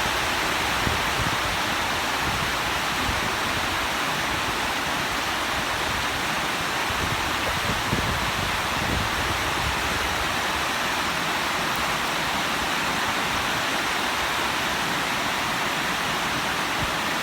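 Rain falling steadily, a dense, even hiss of water with no let-up.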